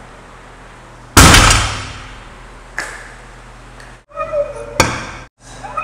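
A barbell loaded with 595 lb (270 kg) of bumper plates comes down onto the lifting platform after a deadlift, about a second in, with one heavy thud and a rattle of plates that fades out. A lighter knock follows as the bar settles.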